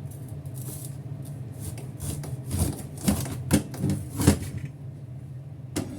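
Bitter melon being handled and cut on a wooden chopping board: a handful of sharp knocks with rubbing and scraping between them, over a steady low hum.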